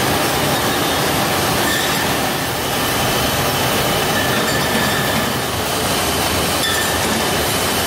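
Beer bottling line running: a steady, dense mechanical clatter of machinery and glass bottles moving on conveyors, with faint high squeaks coming and going.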